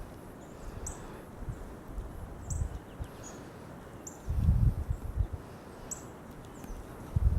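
A puppy gnawing a rawhide chew, dull low crunches in short bursts with a longer spell about halfway through. Small birds chirp repeatedly in short high notes behind it.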